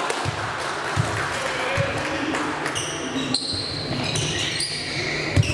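A ball bouncing on a sports-hall floor in scattered thuds, under voices echoing in the hall and short high squeaks.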